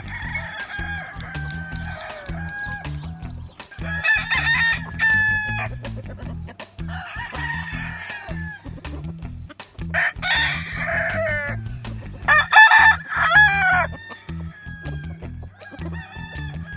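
Game roosters crowing in turn, about five crows with some overlapping, over background music with a steady low beat.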